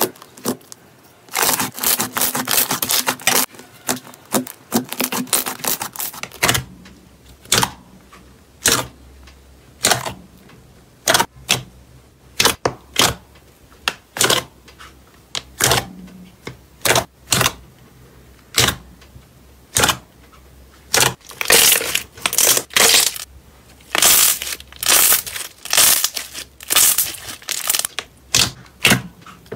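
Hands squeezing and pressing slime, giving a run of short crackling pops and squelches at an irregular pace. A soft white slime comes first; about six seconds in a large glossy blue slime takes over, and its pops come thicker again in the last few seconds.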